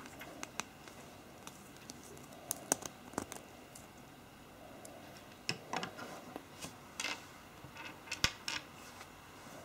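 Lego Technic plastic parts clicking and rattling as they are handled and snapped together, in scattered sharp clicks, the loudest about eight seconds in.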